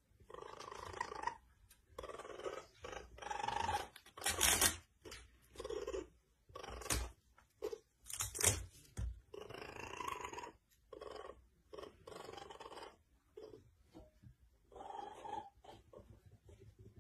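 Raccoon making repeated purring, churring calls in short runs, with a few louder, harsher sounds around the middle.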